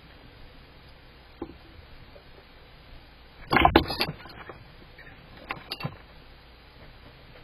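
Metal live rat trap rattling and clanking in a burst of quick knocks about halfway through, with a single click before it and a few lighter clicks after.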